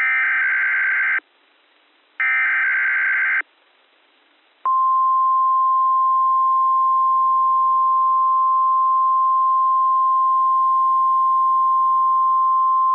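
Weather radio SAME header, the last two of its three data bursts, each a buzzy digital chirp of about a second with a second's gap between. About a second and a half later the steady 1050 Hz weather radio alert tone comes on and holds: the opening of an Environment Canada Weatheradio required monthly test.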